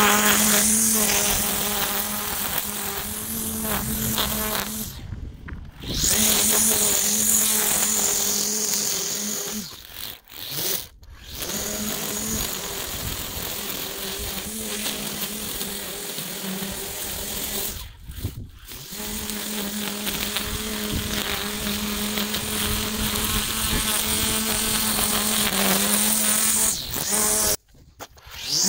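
String trimmer running with a steady high whine as its spinning line cuts grass, stopping briefly a few times and then starting again.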